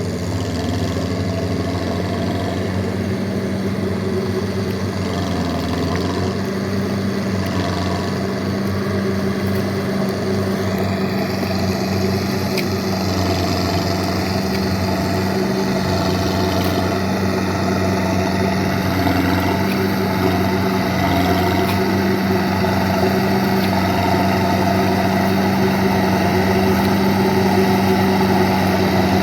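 Small farm tractor's engine running steadily at a constant speed, growing slightly louder over the stretch.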